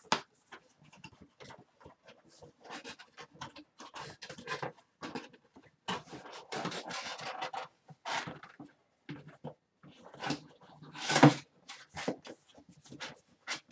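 Cardboard shipping box being bent, creased and tucked together by hand: irregular rustles and scrapes, with one louder crunch near the end.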